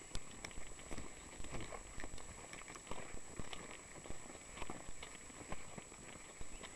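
Footsteps of several people walking on a dirt track strewn with dry leaves: irregular steps and leaf crunches, a couple a second, over a steady high-pitched whine.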